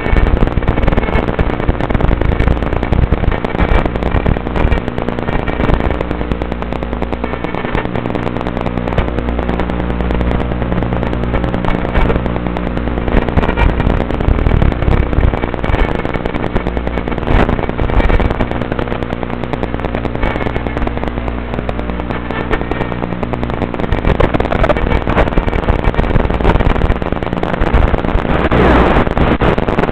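Tiny Whoop micro quadcopter's motors whining in flight, a steady stack of tones that shifts with throttle, heard through the onboard camera feed with heavy crackling static.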